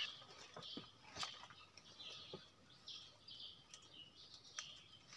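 Faint birds chirping in the forest, with a few light clicks and knocks as a man climbs up through a tree's branches.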